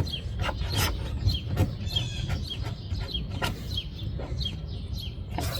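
Small birds chirping over and over in short falling notes, with a dozen or so brief, sharp scrapes of a screwdriver blade working old gooey window adhesive off a car's body.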